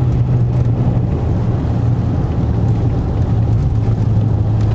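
Ram 1500 EcoDiesel's 3.0-litre turbo-diesel V6 running as the truck drives, heard from inside the cab as a steady low drone with road noise.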